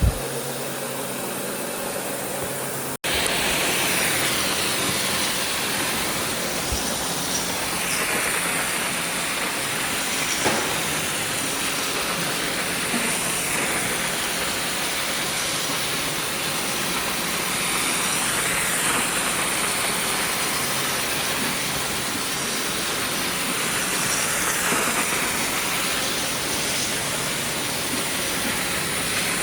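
Floor-cleaning machine working tile: a steady loud hiss and whir that swells and fades every few seconds as it is worked back and forth. For about the first three seconds a quieter machine hum is heard, then a sudden break gives way to the louder hiss.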